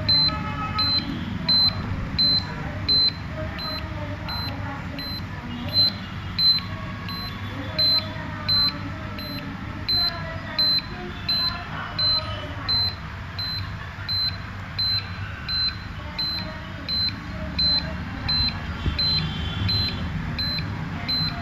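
Carestream CS 2100 dental X-ray unit's buzzer beeping continuously, a short high beep about every three-quarters of a second, with the exposure switch on and no exposure made. This beep goes with error E13, which the uploader traces mainly to a loose connection between the power board and the tube head (generator).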